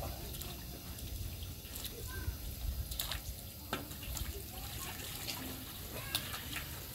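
Clothes being hand-washed in a metal basin: wet fabric sloshing and splashing in the water while a hose trickles water into the basin, with a few sharp splashes about three seconds in and near the end.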